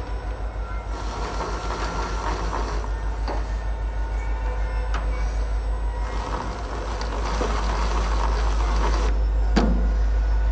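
A steady low hum and rumble, growing slightly louder partway through, with a thin high whine that stops near the end and a single sharp click shortly after.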